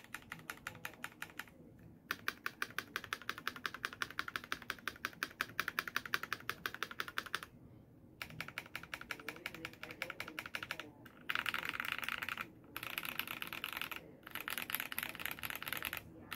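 Typing on a KBD67 Lite R4 mechanical keyboard fitted with black crystal switches: a fast run of keystroke clacks, several per second, broken by a few short pauses. The strokes turn denser and almost continuous over the last few seconds.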